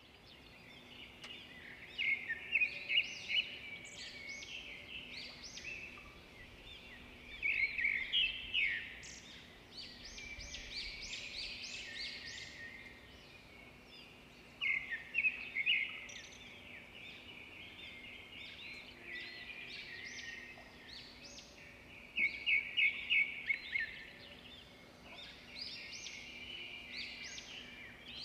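Birds chirping and singing in bursts, with quick runs of repeated notes, over a faint steady hum.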